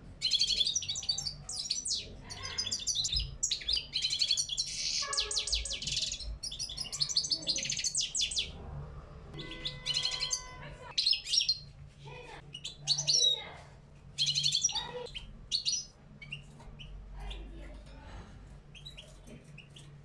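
European goldfinch (parva race) singing: fast twittering runs of trilled and chipping notes, almost unbroken for the first eight seconds or so, then in shorter phrases with gaps, and fainter and sparser over the last few seconds.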